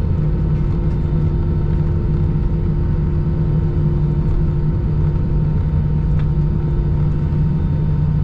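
Steady cabin rumble of an Airbus A319 taxiing after landing, its engines at low taxi thrust heard through the fuselage as an even low hum.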